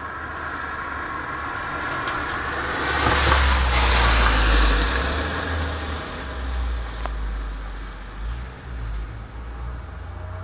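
A road vehicle driving past on the street. Its tyres and engine swell to a peak about three to four seconds in, then fade to a low, uneven engine rumble.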